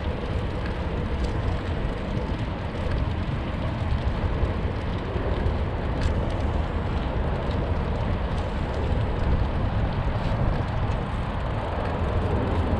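Steady wind rumble on the microphone of a moving bike ride, mixed with tyre noise on a paved path and a few faint rattles.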